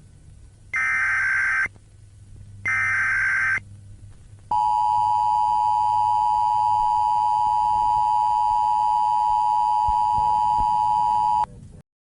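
Emergency Alert System header: two short bursts of SAME digital data tones about a second apart, then the EAS two-tone attention signal sounding steadily for about seven seconds and cutting off abruptly.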